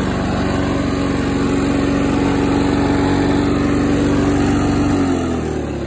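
Lawn-Boy 8237 mower's two-stroke engine running steadily under a cutting-and-bagging load, then slowing down with a falling pitch about five seconds in.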